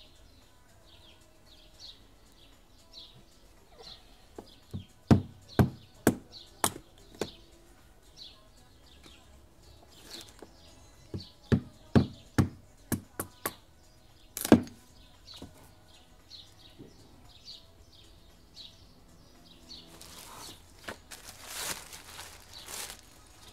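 Two runs of sharp chopping knocks, about two a second, from a knife cutting down onto a board. A plastic bag rustles near the end, and a bird chirps over and over in the background.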